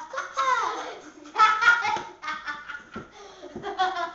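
Children laughing and giggling, mixed with bits of a child's talk.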